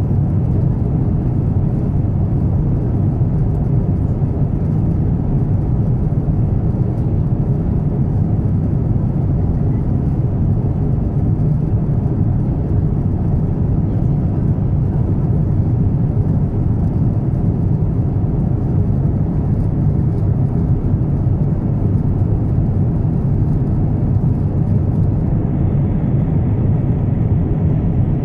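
Steady low roar of an Airbus A350-900 in flight, heard inside the passenger cabin: its Rolls-Royce Trent XWB engines and the rush of air past the fuselage.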